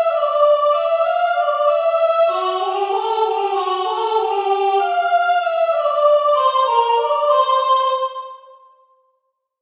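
A soprano voice in several overlaid layers, singing slow, sustained melodic lines a cappella in close harmony. The voices fade out about eight seconds in.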